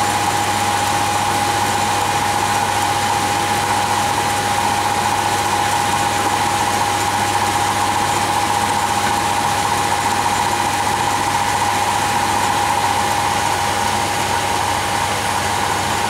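Air-conditioning test rig running steadily, a constant mid-pitched whine over a low hum. Its compressor is drawing the refrigerant back out of the sight glass through the low-pressure side.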